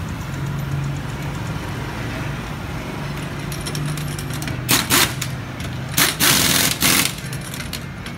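Several short bursts of compressed-air hiss from a shop air hose at a car's wheel, starting about halfway in, over a steady low hum.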